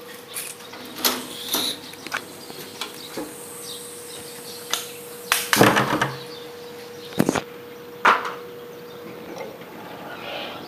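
Scattered knocks and clatter of a door being opened and handled, the loudest cluster about halfway through, over a steady hum that stops near the end.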